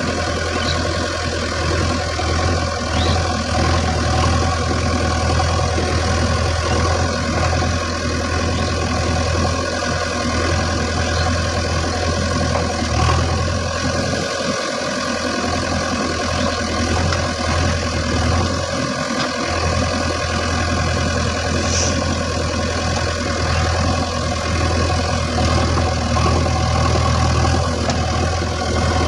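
Heavy diesel engine running steadily at low revs, a constant low hum with a brief dip twice partway through.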